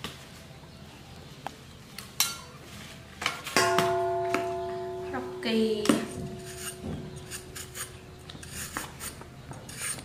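A stainless steel bowl is knocked and rings with a clear tone that fades over about two seconds, with more metal clinks and clangs just after. Before and after it come scattered light knocks, and light scraping clicks from a vegetable peeler on hard green fruit.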